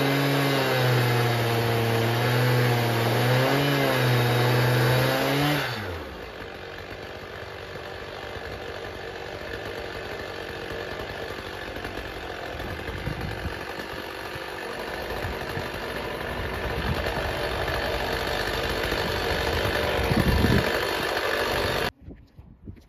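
Stihl MS880 chainsaw on a chainsaw mill running flat out in the cut, then the revs drop away about six seconds in as the cut finishes. Quieter steady noise follows, with a knock near the end.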